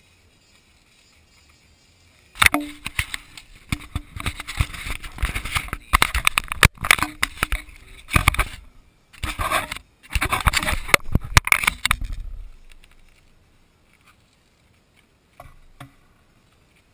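Camera being picked up, moved and set down on a wooden board close to its own microphone: loud irregular knocks, scrapes and rattles for about ten seconds, with brief silent gaps. A couple of light taps follow near the end.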